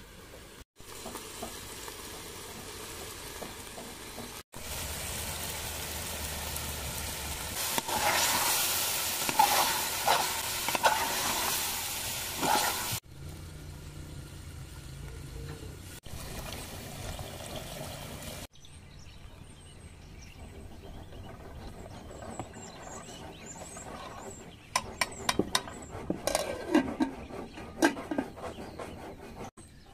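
A pot of stew sizzling as it fries, with a ladle stirring it. The sizzle is loudest for a few seconds about a third of the way in, and a run of sharp metal clinks comes near the end as the lid is set on the pot.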